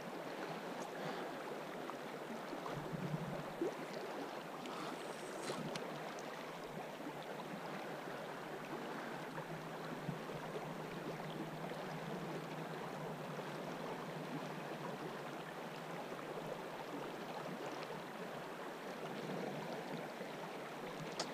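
Fast-flowing river current, a steady rushing wash of water, with a couple of small knocks about three to four seconds in.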